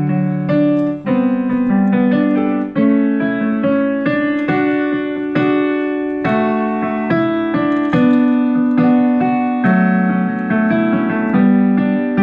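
Piano music: a steady run of struck chords and melody notes.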